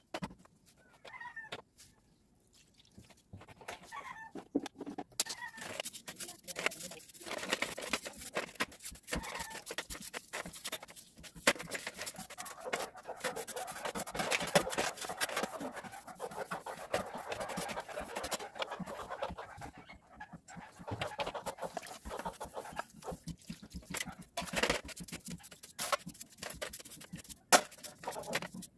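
Dismantled starter motor parts being washed in a metal tray of cleaning fluid: brush scrubbing, wet swishing and clinks of metal parts, starting about five seconds in. Before that, a chicken clucks faintly in the background.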